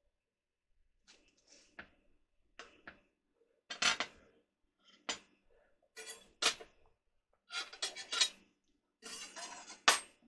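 A loaf of bread being torn apart and handled on a ceramic plate: a series of short scrapes and knocks, clustered every second or two and loudest about a second before the end.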